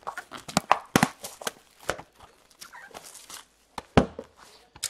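Trading cards and their packaging handled on a table: irregular clicks and rustles, with sharper knocks about one, two and four seconds in.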